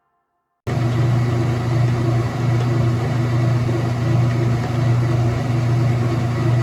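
Washing machine running: a steady mechanical hum from the motor and turning drum, starting abruptly about half a second in.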